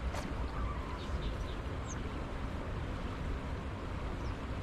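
Steady wind rumble on the microphone, with a few faint, short bird chirps above it.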